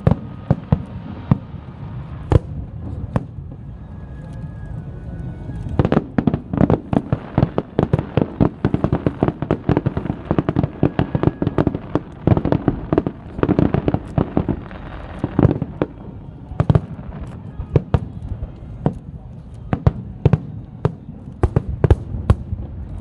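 Fireworks and firecrackers going off in a long string of sharp bangs, scattered at first, then a dense rapid volley for about ten seconds, then thinning out again.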